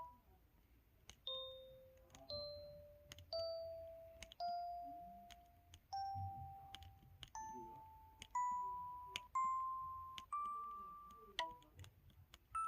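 KTF-E3300 mobile phone keypad set to its piano key-tone, keys pressed one after another about once a second. Each press gives a light click and a short piano-like note that dies away, the notes climbing step by step up a scale, about ten in all.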